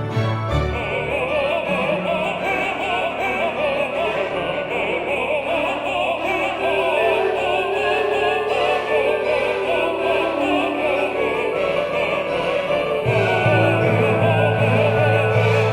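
Background music: a classical piece with an operatic voice singing with wide vibrato over orchestral accompaniment. A low bass part drops out shortly after the start and comes back in about thirteen seconds in.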